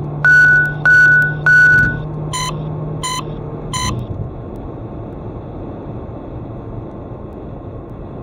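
Electronic alert beeps inside a moving car: three longer, high beeps in quick succession, then three shorter, lower beeps, over steady cabin road noise.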